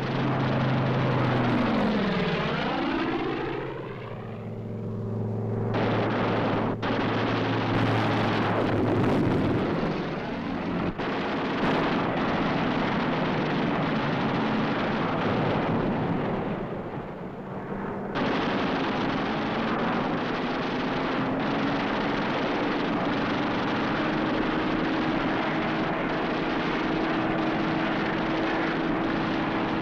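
Propeller fighter plane engines droning loudly, the pitch sliding down over the first few seconds. The sound changes abruptly about six and eighteen seconds in, and its pitch climbs slowly through the last ten seconds.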